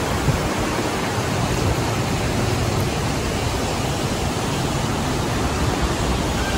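Steady rushing noise of wind on the microphone, even throughout with no distinct events.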